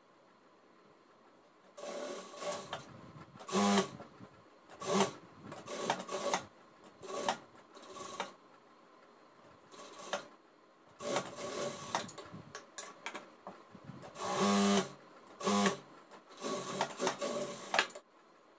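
Jack industrial sewing machine stitching in a string of short runs, starting about two seconds in, with fabric rustling between them.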